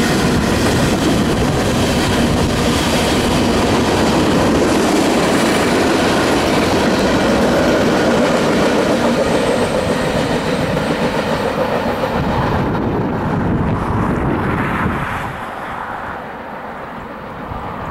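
CSX freight train's open-top hopper and gondola cars rolling past on the rails with a steady, loud rumble and rattle of wheels on track. About fifteen seconds in the sound drops off and turns quieter as the train moves away.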